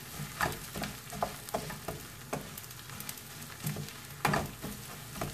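Wooden spoon stirring rice that is toasting in butter and oil in a stainless steel pan: a steady sizzle with a scrape at each stroke, about two a second, the loudest about four seconds in.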